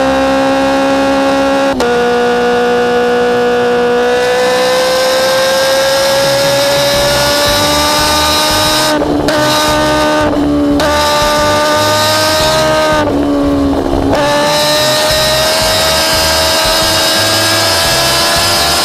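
Motorcycle engine running hard at highway speed, heard from the bike. Its note steps down twice in the first few seconds, then slowly climbs, with three short breaks in the note midway, under a rising rush of wind.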